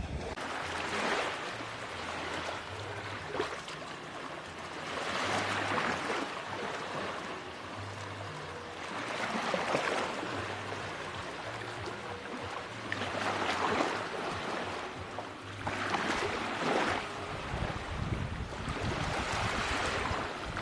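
Ocean surf washing onto a beach, the noise of breaking water swelling and fading every few seconds as each wave comes in. Near the end a low rumble joins it.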